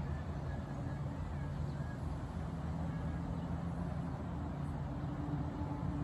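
A motor running with a steady low hum, with a few faint short bird chirps over it.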